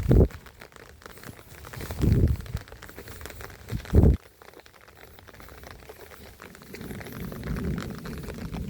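Slow footsteps: three heavy, dull thuds about two seconds apart over a faint patter of rain, with a low rumble building near the end.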